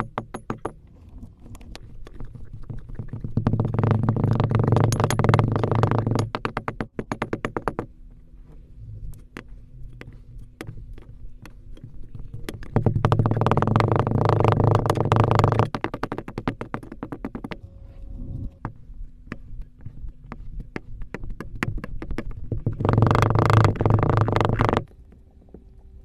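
Coloured sand being crushed and packed into a glass with a wooden tamper: three long stretches of dense crackling crunch, with runs of sharp, evenly spaced ticks between them.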